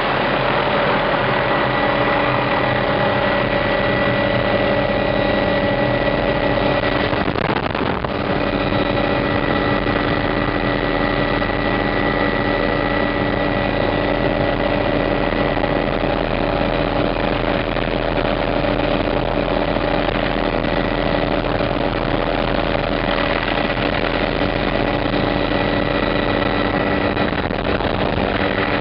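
Hughes 500 helicopter heard from inside its doors-off cabin during takeoff: the Allison 250 turboshaft's steady whine and the rotor running at flight power.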